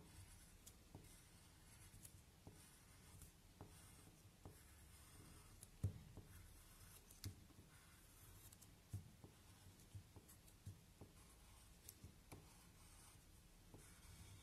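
Faint scratching of a coloured pencil drawing short strokes on paper as it goes over outlines to darken them, with light ticks scattered throughout, the sharpest about six seconds in.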